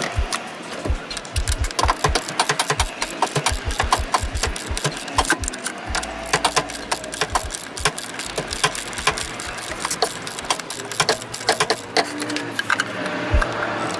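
Hand socket ratchet clicking in quick runs of ticks as it turns the crankshaft pulley bolt.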